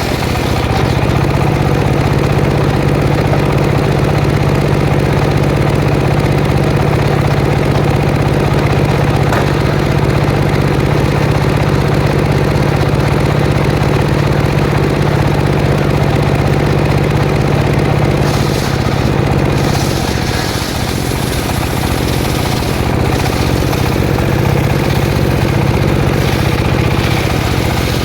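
Petrol-engine circular saw running steadily, its engine note dipping briefly about twenty seconds in.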